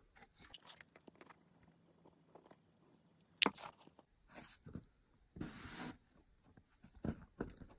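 Quiet handling of cardboard kit parts pressed together on a cutting mat: faint ticks, one sharp click about halfway through, and two short rasping rubs of fingers and cardboard.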